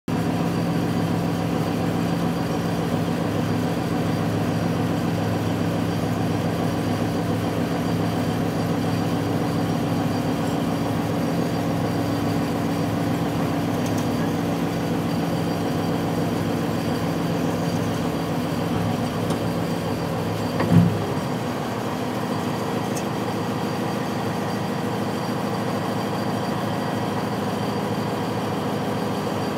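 Reedrill SK25 blasthole drill rig's diesel engine running steadily. About two-thirds of the way through there is one brief loud jolt, and the deep part of the hum drops after it.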